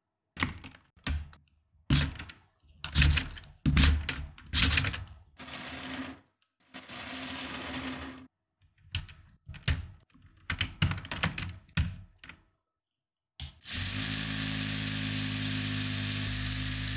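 Lego Technic parts handled and pressed together, a run of short plastic clicks and knocks. About three-quarters of the way in, a motor-driven Lego Technic gear train starts up and runs at high speed with a steady whirring hum and hiss.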